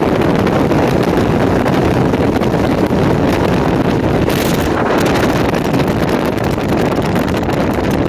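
Mariner Magnum II two-stroke outboard running at speed, with water rushing off the hull and heavy wind buffeting the microphone. The sound is a steady rush with a brief brighter hiss about four and a half seconds in.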